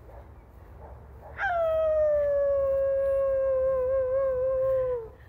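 A person imitating a wolf howl: one long howl that starts sharply about a second and a half in, is held while slowly falling in pitch, then wavers and drops away near the end.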